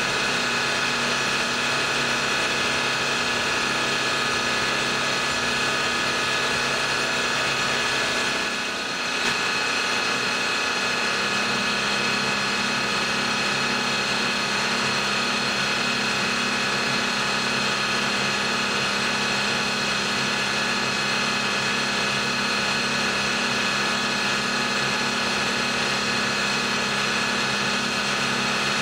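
Milling machine running steadily while a chamfer mill cuts a chamfer along the edge of a metal part, a continuous machine hum with a steady whine. There is a brief dip about nine seconds in, and the low hum shifts slightly a couple of seconds later.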